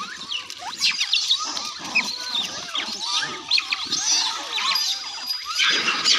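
A large troop of rhesus macaques calling while feeding: many short, overlapping squeaks and chirps that rise and fall in pitch, mixed with higher shrill squeals. A louder, denser burst of squealing comes near the end.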